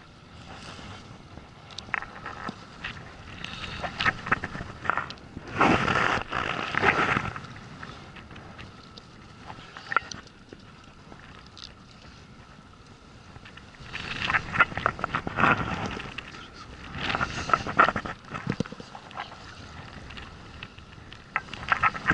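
Wind buffeting the microphone and water moving around a small inflatable boat, swelling into several loud gusts.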